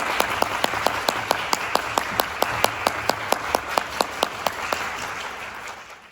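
Audience applauding in a hall, with one nearby person's claps standing out at about four to five a second. The applause dies away near the end.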